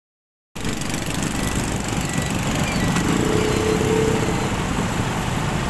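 Motor scooter's small engine running steadily as it rides through a flooded street, with water splashing around the wheels; the sound starts about half a second in.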